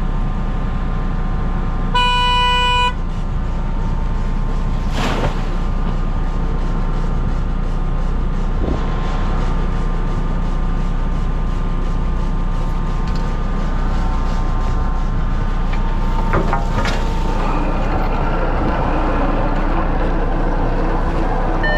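Fishing boat's engine running steadily, with a horn sounding once for about a second about two seconds in.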